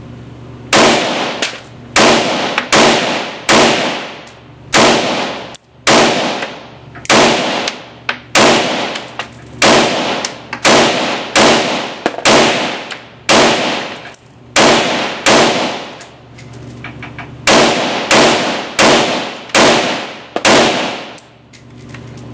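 Steyr AUG-pattern bullpup rifle fired semi-automatically in rapid succession, about twenty shots at a steady pace of roughly one and a half per second, with a short pause about two-thirds of the way through. Each shot rings off the walls of the indoor range.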